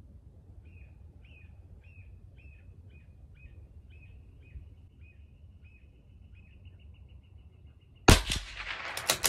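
A single shot from a CZ 457 LRP .22 LR rifle, firing hot-loaded Aguila Interceptor, about eight seconds in: a sharp crack followed by a few quick clicks. Before it, a faint run of short high chirps comes about twice a second.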